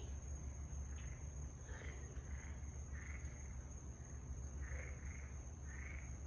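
Frogs calling in a night chorus: short calls, often in pairs, about every second, over a steady high-pitched whine and a low hum.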